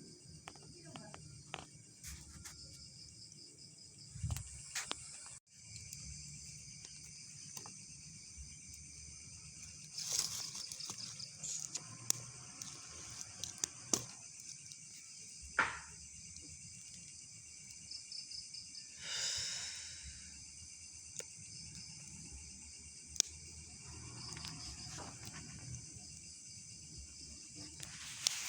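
Night insects, crickets among them, keep up a steady high-pitched chorus, with scattered sharp clicks and a few brief louder noises from an unseen source.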